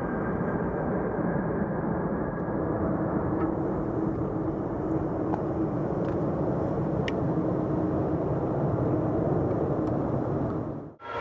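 Jet airliner engines rumbling steadily, with a faint droning tone coming in a few seconds in. The sound drops out briefly near the end.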